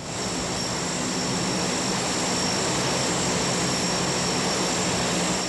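Lockheed C-130 hurricane-hunter aircraft with its four turboprop engines running: a steady high turbine whine over a low propeller hum.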